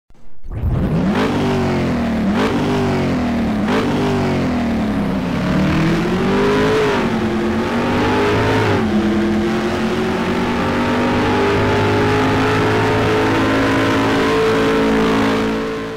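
Race car engine sound effect: three quick revs, then accelerating with a couple of gear changes and holding a steady high pitch, fading out near the end.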